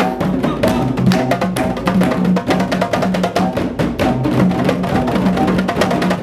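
Percussion ensemble music: djembe hand drums struck in a fast, dense rhythm over repeated low pitched notes.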